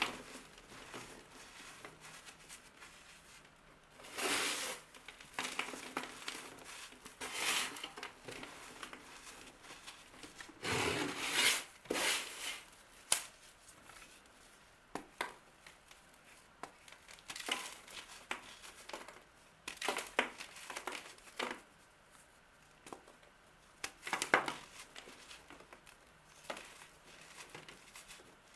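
Crisp crunching and crackling of a crumbly material being crushed or cut by hand, in irregular bursts with sharp clicks in between.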